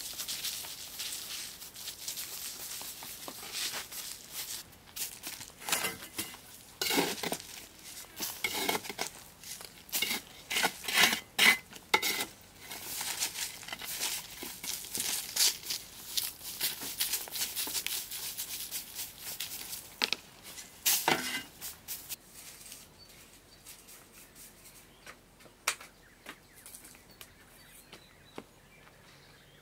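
Long-handled broom sweeping dry dirt and leaves off earthen steps in repeated brushing strokes, dying away about three quarters of the way through to a few faint scrapes.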